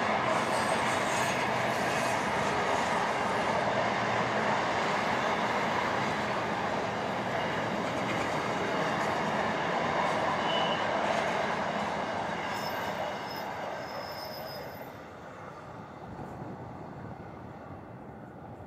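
Empty freight wagons rolling along the track, a steady wheel-on-rail noise that fades away over the last several seconds as the end of the train passes.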